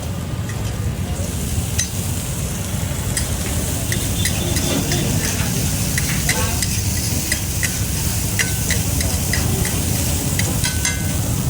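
Food sizzling on a hot pan at a street-food stove, with a metal spatula repeatedly clinking and scraping against the pan as it is stirred. A steady low rumble runs underneath.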